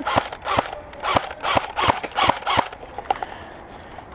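Footsteps crunching through a thick layer of dry fallen leaves at a running pace, about seven quick steps, that stop about two-thirds of the way through.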